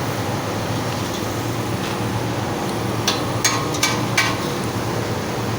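Steady background rumble, then from about halfway a quick run of four or five sharp knocks, less than half a second apart.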